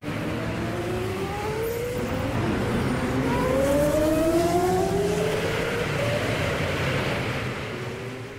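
Race car engine accelerating hard, its pitch climbing in several long rises over a rough, noisy roar, then fading out near the end.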